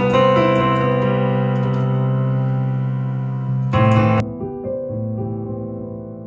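Piano playing slow, sustained chords, EQ'd to mimic severe hearing loss. About four seconds in a new chord is struck, and from then on the treble is cut away, leaving a dull, muffled sound.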